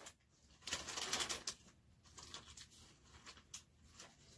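Faint, brief rustling and crackling about a second in, followed by a few scattered small clicks.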